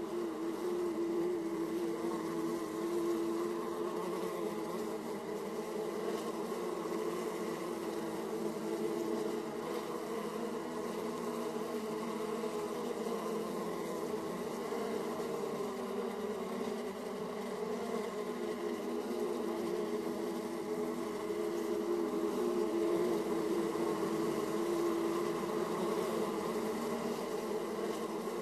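Honeybees buzzing at the hive entrance: the steady hum of many bees flying in and out, swelling and easing slightly.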